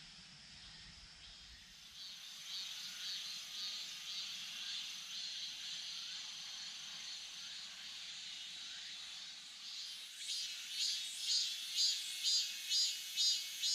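Insects calling in a summer forest. A pulsing high-pitched trill starts about two seconds in, and from about ten seconds a louder call pulses about twice a second.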